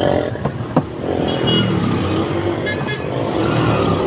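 Street traffic: motor vehicle engines running and passing, with a sharp click about three-quarters of a second in and a few brief high beeps near the middle.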